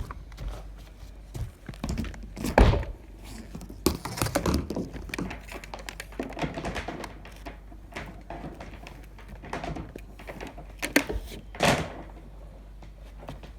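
Irregular knocks and thuds with some scraping, from hand work on the yacht's deck and hull structure. The heaviest thud comes about two and a half seconds in and a sharp knock near the end, with a rougher scraping stretch in between.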